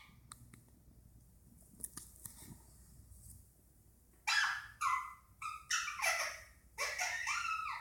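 Indian ringneck parakeet chattering: a few faint clicks, then about four seconds in a quick run of about six loud, harsh calls.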